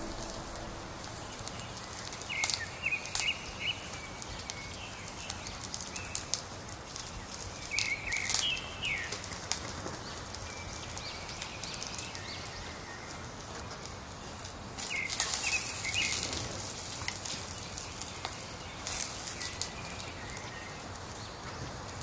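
Birds calling in short runs of a few quick chirps, repeated a handful of times, over the crackle and snap of a wood fire burning in a clay stove.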